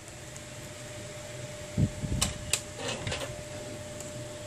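A soft knock and a few sharp little clicks about two seconds in, from a screwdriver and tiny screws being handled over the metal earpiece bracket of an iPhone 6 Plus display assembly, over a faint steady hum.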